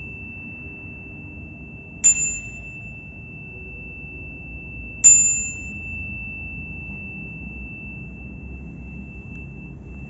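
A steady high-pitched tone rings on unbroken. A sharp ding strikes twice over it, about two seconds and five seconds in, each dying away within half a second.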